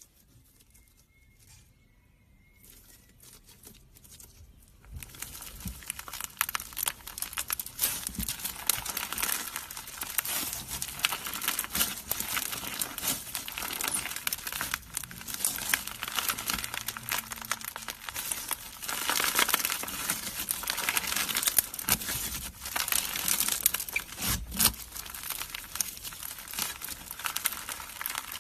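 Slime being squeezed and worked by hand, making a dense, continuous crackling with many small pops. It is faint and sparse for the first few seconds and grows loud and steady about five seconds in.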